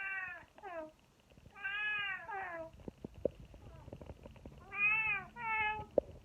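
A domestic cat meowing repeatedly: five short arched meows, one of them longer about two seconds in and a quick pair near the end. Light taps and a sharp click come between the calls.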